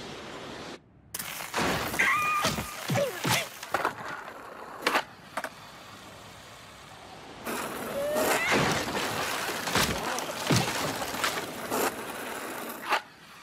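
Slapstick cartoon sound effects for a falling bird and its eggs: a string of sharp knocks, thunks and cracks, with short squawk-like cries from the bird. In the second half a long rushing noise carries more knocks and a rising cry.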